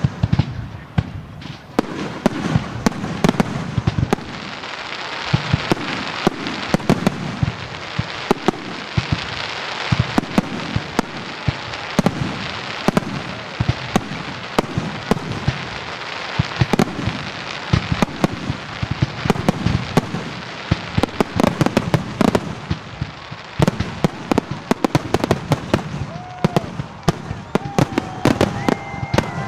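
Fireworks display: a rapid, near-constant barrage of aerial shell bursts and bangs over a continuous crackle.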